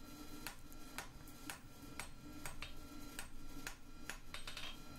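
Hand hammer striking a red-hot steel bar on an anvil to draw out a taper: steady blows about three a second, each with a short ring.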